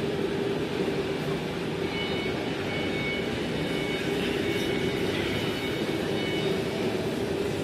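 Steady running hum of a semi-automatic maxi-roll tissue cutting and rewinding machine, with a faint high whine that comes and goes in the middle.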